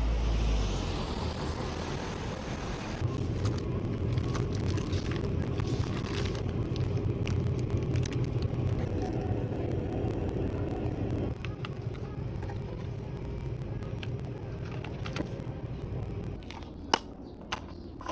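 Steady low rumble and hum of a vehicle in motion, with scattered sharp clicks; the rumble drops away near the end.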